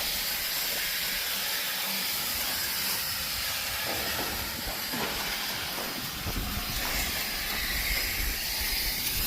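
Steady hiss of water and coil-cleaning solution spraying onto an air conditioner condenser's coils.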